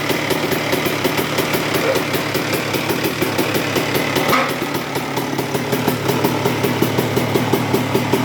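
2002 Honda CR125's single-cylinder two-stroke engine idling with a steady, regular pulsing and a low-pitched growling vibration. The growl remains after a new cylinder and rebuilt transmission; the owner suspects a bad main bearing or a sloppy clutch basket gear.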